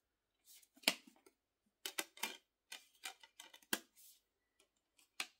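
Irregular light clicks and taps of a cardboard DVD digipack being unfolded and handled, the sharpest about a second in and again a little before four seconds.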